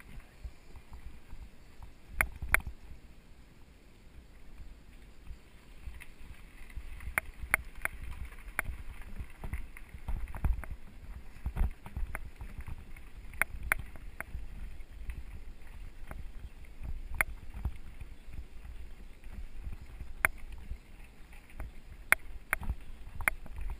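Mountain bike riding over a gravel dirt road, picked up by a GoPro on the bike or rider: a steady low rumble of tyres and vibration, with sharp clicks and rattles every second or two as it jolts over bumps.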